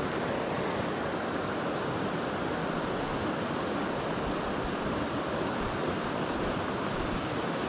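Steady rush of the Nantahala River's current flowing over rocks in a shallow riffle.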